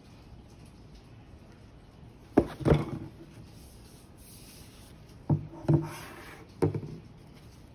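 Gloved hands handling a Surface Pro 9 tablet in its cardboard box tray: dull knocks come in three short clusters, about two and a half, five and a half and nearly seven seconds in, with soft rubbing between them.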